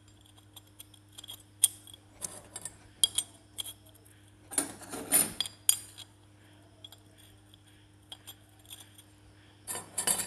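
Hero Glamour clutch plates, steel plates and friction plates, clinking against one another as they are handled and stacked by hand: scattered light metallic clicks, busiest about halfway through and again near the end. A faint steady hum runs underneath.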